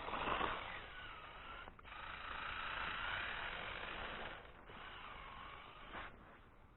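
Electric motor and gearbox of a radio-controlled 4x4 rock crawler whining as it drives, the pitch rising and falling with the throttle and cutting out briefly a few times.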